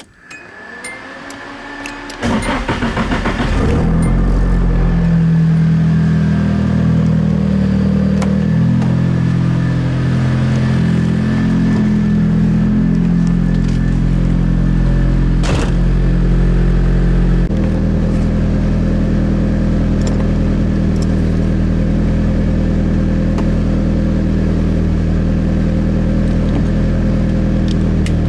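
Turbocharged SR20DET four-cylinder in a Nissan 240SX with a straight-piped exhaust being started: it cranks briefly and catches about two seconds in, revs unevenly, then settles into a steady idle near the end. A single sharp click sounds shortly before it settles.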